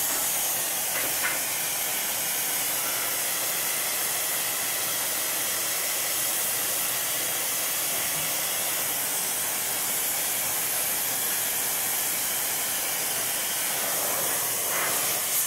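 Oxy-fuel gas torch flame hissing steadily while it heats a piece of steel red-hot for bending.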